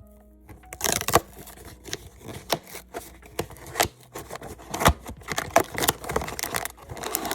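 Blind box packaging being opened by hand: irregular scraping, rustling and clicking.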